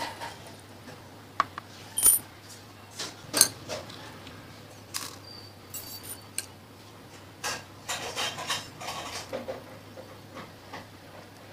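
Scattered sharp metallic clicks and clinks from a padlock and small steel safety pins being handled and worked with a tool. The loudest come about two and three and a half seconds in, with a short run of rattling clicks around eight seconds in, over a low steady hum.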